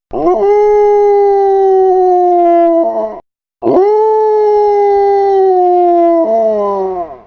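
A dog howling: two long, loud howls of about three seconds each, each rising at the start, holding a steady pitch that slowly sinks, then dropping away at the end, with a short break between them.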